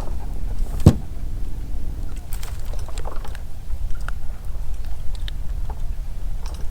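Steady low rumble of outdoor boat ambience, with one sharp knock about a second in and a few light clicks after.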